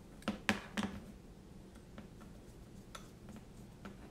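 Sharp clicks and taps of a small hex driver and tiny screws being handled while fastening a standoff on a micro drone frame: three close together just under a second in, then a few fainter ticks.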